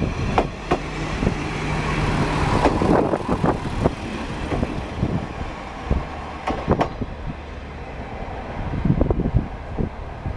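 JR Kyushu KiHa 40-series diesel railcar moving slowly through the station, its diesel engine giving a steady low hum for a couple of seconds near the start. Irregular clicks and knocks and some wind noise on the microphone run through it.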